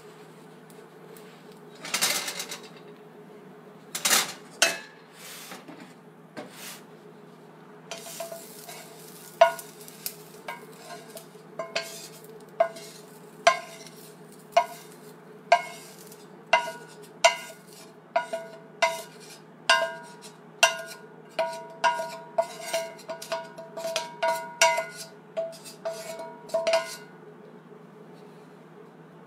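A metal utensil clinking and scraping against cast iron cookware: a few strikes at first, then a steady run of one to two ringing strikes a second that stops shortly before the end.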